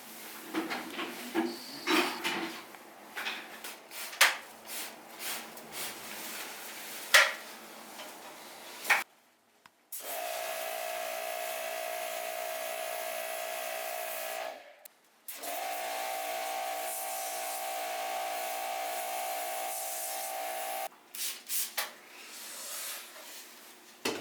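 Plastic parts and tools clicking, knocking and rubbing as an air conditioner is taken apart. Then an electric cleaning machine runs twice for about five seconds each, a steady hiss with a whine that starts and stops abruptly. More clicks follow near the end.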